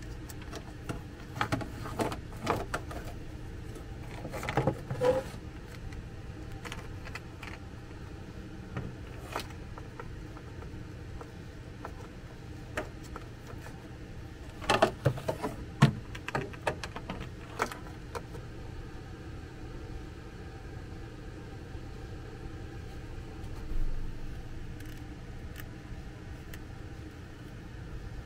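Scattered metallic clinks and knocks from tools and parts being handled in a vehicle's chain-drive compartment, in two clusters, about two seconds in and again about fifteen seconds in, over a steady fan hum.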